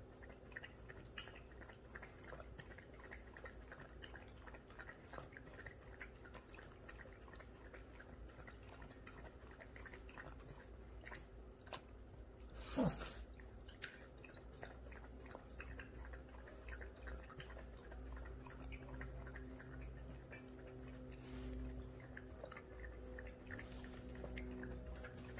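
A puppy lapping water from an electric pet drinking fountain: a run of soft, quick licking clicks over the fountain pump's steady hum and trickle. One sharp knock about halfway through, likely the puppy's muzzle or tags against the fountain.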